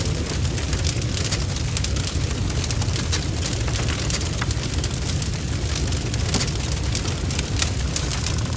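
Large barn fire burning: a steady low rumble with dense, irregular crackling and spitting.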